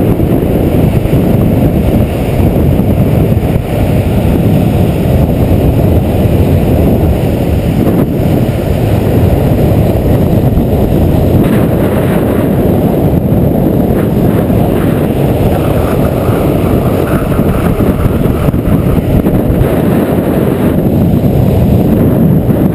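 Loud, steady wind rushing over the microphone at downhill longboarding speed, mixed with the roll of longboard wheels on asphalt.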